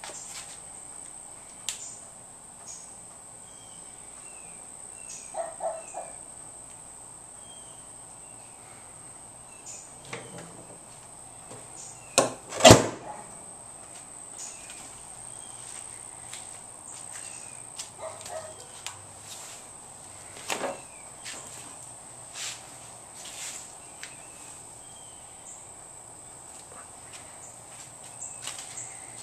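Scattered light clicks and knocks over a steady high-pitched whine, with one loud knock about halfway through, and faint short chirps now and then.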